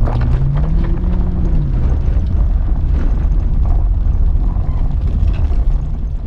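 Car engine revving hard under a heavy low rumble, its pitch rising and then falling in the first second and a half.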